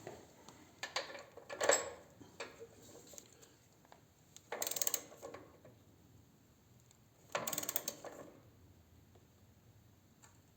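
Torque wrench ratcheting in two short bursts, about four and a half and seven and a half seconds in, as the front axle nut is tightened toward 70 foot-pounds, with a few light clicks of tool handling before them.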